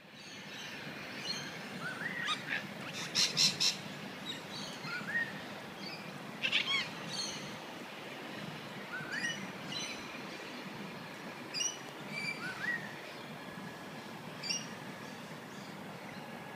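Birds calling: short rising chirps and whistles every second or two, with three quick louder calls about three seconds in and another loud call about six seconds in, over steady outdoor background noise.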